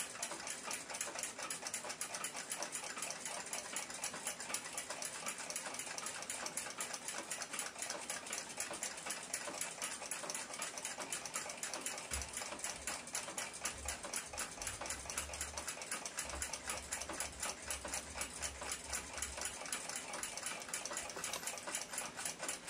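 Rapid, even ticking of a running Ansonia clock movement, freshly cleaned and oiled.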